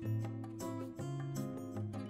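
Background instrumental music: plucked guitar notes over a steady bass line.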